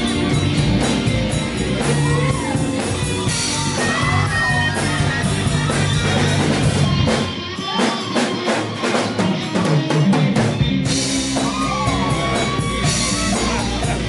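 Live band playing, with electric guitar and drums: lead notes bend up and down over the beat. About halfway through, the bass drops out for a few seconds, leaving guitar and drums, then the full band comes back in.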